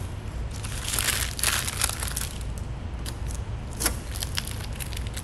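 A peeled sheet of vinyl application tape (transfer mask) crinkles and rustles as it is handled, loudest in the first two seconds. Scattered sharp ticks follow later.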